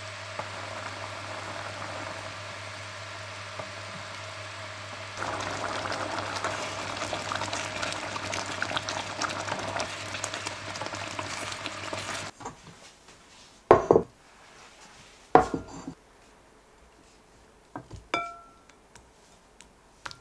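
Thick sauce simmering in a stainless steel pot as a wooden spoon stirs it: a steady bubbling hiss full of small clicks, louder from about five seconds in. It stops abruptly, followed by a few sharp clinks of a serving spoon against the bowls and pot, one of them ringing briefly.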